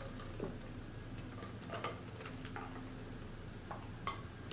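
Quiet eating sounds close to the microphone: a few soft mouth clicks and smacks from chewing, with a sharper click near the end.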